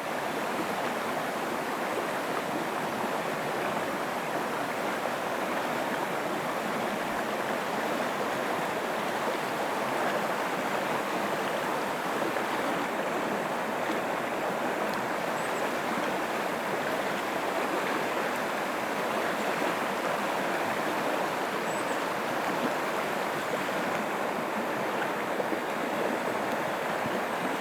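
Laurel Fork, a mountain creek, flowing with a steady rush of water, with two faint high chirps partway through.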